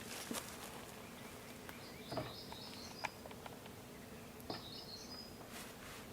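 A small bird gives a short, high warbling call twice, a couple of seconds apart. A few light taps or crunches are mixed in.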